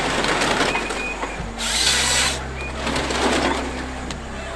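Wood crusher running: a steady machine hum under harsh grinding of wood being shredded, which surges loudest about two seconds in.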